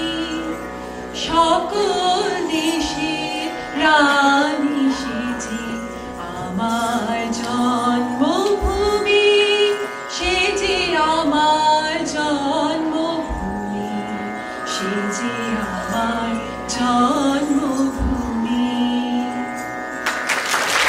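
A woman singing a Bengali song solo into a microphone, her melody bending and ornamented, over a steady drone accompaniment. Applause breaks out at the very end.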